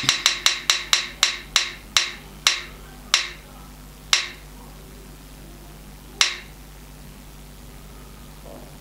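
Spin-the-wheel phone app's ticking sound as its wheel spins down: about ten sharp, ringing clicks that come quickly at first and spread further and further apart, the last two about two seconds apart, then stop.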